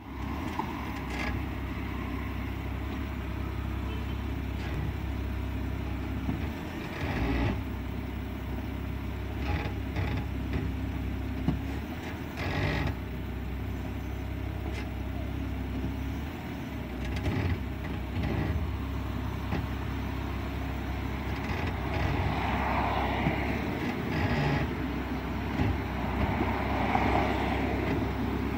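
A car's brakes making noise as it is shifted from reverse to drive and back. There are several short knocks at intervals over a steady low engine hum, and longer rough stretches of noise near the end.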